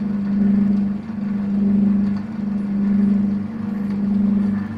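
Boxford lathe running during internal screwcutting: a steady hum from the motor and drive that swells and fades about every second and a quarter.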